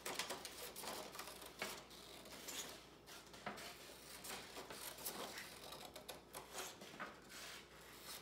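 Two pairs of scissors snipping through construction paper in an irregular run of short cuts, with the paper rustling.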